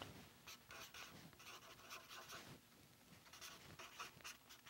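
Felt-tip marker writing on paper, a faint run of short scratching strokes.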